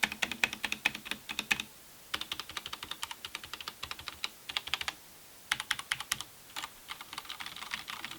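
Typing on a mechanical keyboard fitted with OEM-profile keycaps: rapid runs of keystroke clicks, broken by two short pauses about two and five seconds in.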